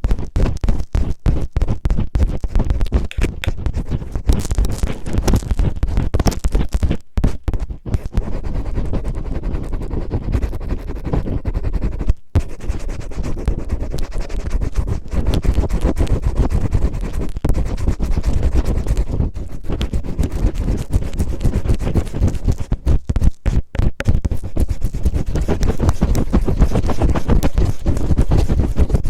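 Cellophane crinkled and rubbed roughly against the microphone in an ASMR ear-cleaning style. It makes a loud, continuous scratchy rustle with a heavy rumble, broken by a few short gaps.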